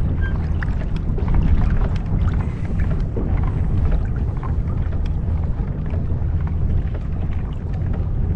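Wind rumbling on the microphone over water lapping against a plastic kayak hull: a steady low rumble with small scattered splashes and ticks.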